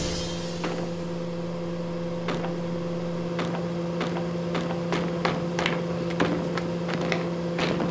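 A steady electric hum, with short clicks and knocks of hands fumbling at a prop time bomb, sparse at first and coming thick and fast in the second half.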